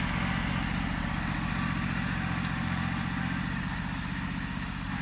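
Iseki TU1600 4WD compact tractor's diesel engine running steadily under load as it pulls a loaded log trailer through mud, growing slightly fainter as it moves away.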